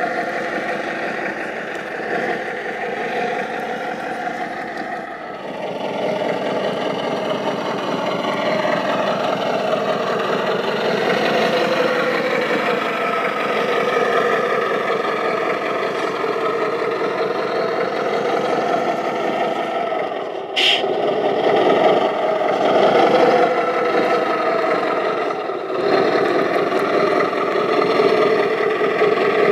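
Radio-controlled MAZ-537 model truck's engine sound running and revving as the truck drives over gravel; the engine note rises and falls and gets louder about five seconds in. A short sharp high sound cuts in about twenty seconds in.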